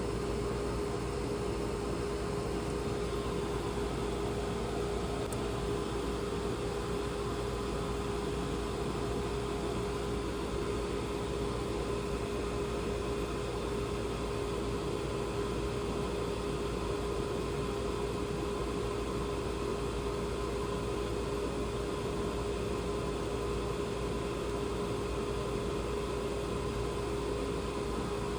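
Steady hum with one constant mid-pitched tone over an even hiss, unchanging throughout, like a fan or small motor running.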